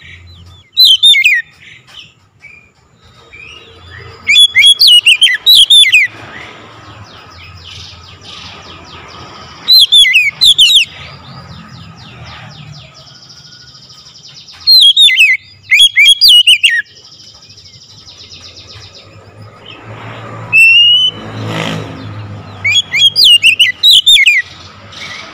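Oriental magpie-robin (kacer) calling loudly in repeated bursts of quick, sharp, down-sweeping whistled notes, a burst every few seconds.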